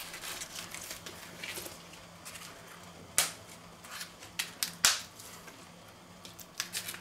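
Cauliflower leaves snapped and pulled off the head by hand: a few sharp, crisp snaps of the leaf stalks, the loudest about three seconds in and just before five seconds, with softer leaf rustling between.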